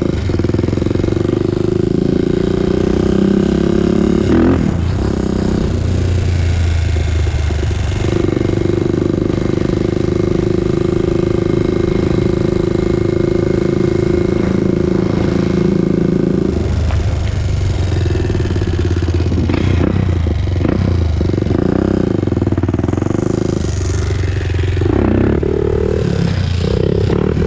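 Honda TRX400EX ATV's single-cylinder four-stroke engine running while riding, holding a steady pitch for several seconds, then rising and falling as the throttle is worked near the end.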